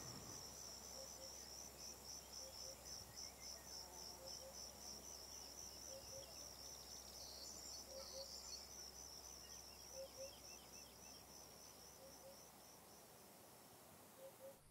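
Faint cricket chirping: a high, even pulsed chirp several times a second that stops shortly before the end, with quieter scattered chirps beneath it.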